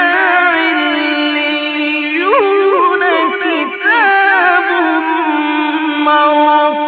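A male Quran reciter's voice chanting in the melodic mujawwad style. He holds long notes on elongated syllables, with ornamental turns, and starts a new phrase about four seconds in.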